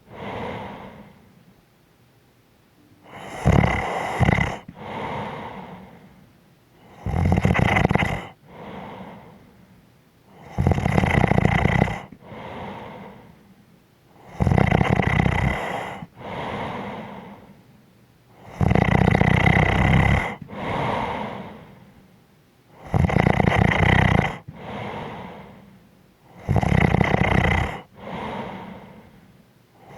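A person snoring in a slow, regular rhythm: a loud rattling snore about every three and a half to four seconds, seven in all, each followed by a softer, shorter breath.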